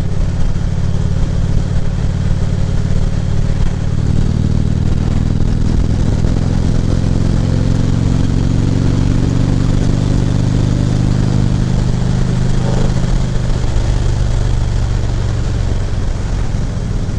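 Harley-Davidson Ultra Classic Limited's V-twin engine running under way, picking up speed about four seconds in, holding steady, then easing off a few seconds before the end, with wind rush on the helmet microphone.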